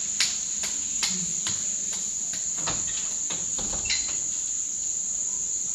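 Crickets chirring in one steady, unbroken high tone, with about ten light, irregular taps over it that stop about four seconds in.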